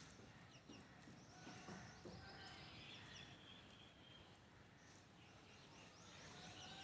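Faint birds chirping in short runs of high notes over quiet outdoor background hiss.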